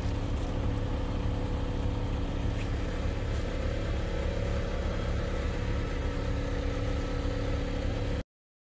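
Truck engine idling steadily, a low even throb with a hum held on one pitch.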